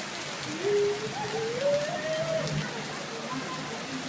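Heavy rain falling steadily, a dense even hiss. For about two seconds near the start, a faint drawn-out tone rises and wavers over it.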